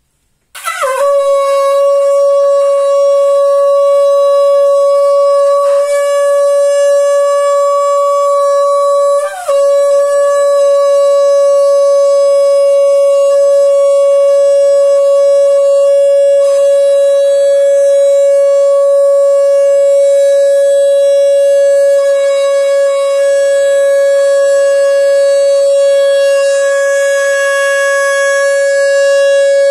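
Conch shell blown in one long sustained note. It starts about half a second in with a quick drop in pitch, then holds a steady, loud tone with a brief wobble about nine seconds in, and is still going at the end.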